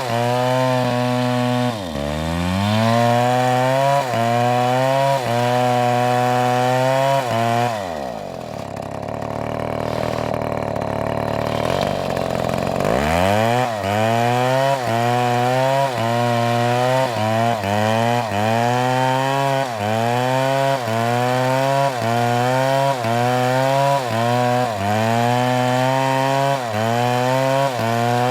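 Chainsaw cutting wood at full throttle, its pitch dipping and recovering about once a second as it loads up in the cut. About eight seconds in it drops to idle for a few seconds, then revs back up and cuts on.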